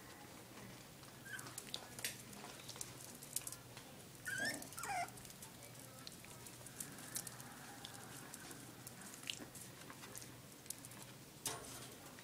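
Dachshunds, an adult and month-old puppies, moving on a tile floor: scattered claw clicks and patter, with a short, high, falling whine from one of the dogs about four seconds in.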